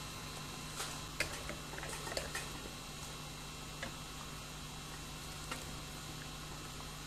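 Steady hiss and low mains hum from the recording, with a few faint short clicks scattered mostly through the first three seconds and a couple later on.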